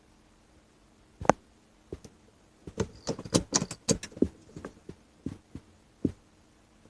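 Irregular light clicks and knocks: one sharp click about a second in, then a quick cluster of rattling clicks around three to four seconds in, and a few more scattered ones.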